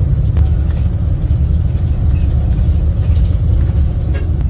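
Inside a moving bus: steady low engine and road rumble, with a few light rattles and clicks.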